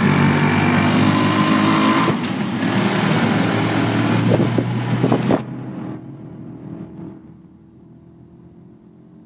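Tricycle's motorcycle engine running while riding in its sidecar through traffic, with a loud rushing noise that cuts off suddenly about five and a half seconds in, leaving a quieter steady engine drone.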